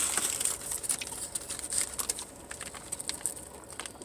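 A person eating: chewing with quick wet mouth clicks and small rustles, busiest at the start and thinning out.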